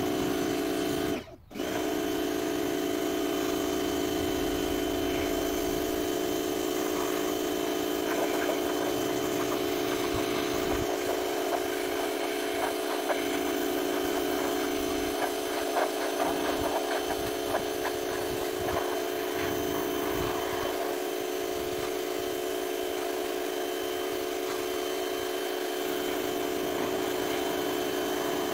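Pressure washer running steadily while its jet sprays the wooden fence boards: a constant motor-and-pump hum over the hiss of the spray. The sound drops out for a moment about a second in.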